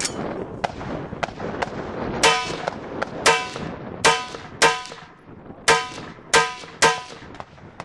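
Seven shots from an AR-15-type carbine, beginning about two seconds in and spread over roughly five seconds, some in quick pairs; each crack is followed by a brief ringing tone.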